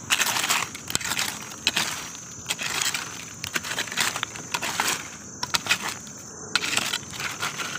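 Dry fallen leaves crackling and rustling as the leaf litter is scraped and pushed aside to uncover puffball mushrooms, in irregular bursts.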